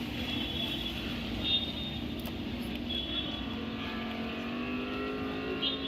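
A two-wheeler's small engine running steadily while being ridden, its note rising a little about four seconds in.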